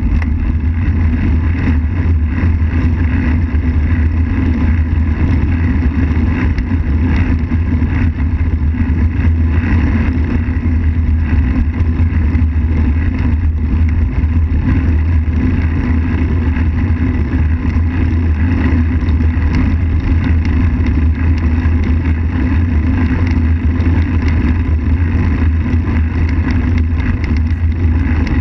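Wind buffeting the microphone of a camera on a moving bicycle: a loud, steady low rumble with an even hiss over it, unbroken throughout.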